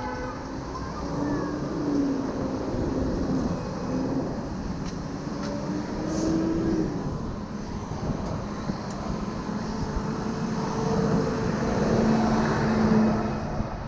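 Longboard wheels rolling fast over city asphalt, a steady roar mixed with the hum of nearby traffic engines that grows loudest near the end.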